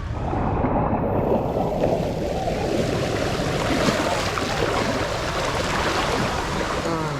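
Lazy-river water sloshing and splashing right at the microphone, a steady, crackling wash of noise.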